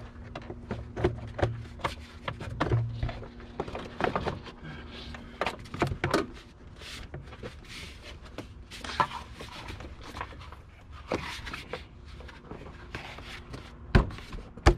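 Plastic engine air intake tube being handled and pressed back into place: scattered clicks, knocks and plastic rustling, with a sharper knock near the end.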